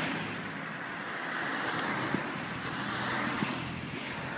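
Cars passing on a wet road, their tyres hissing on the asphalt, the sound swelling and fading twice.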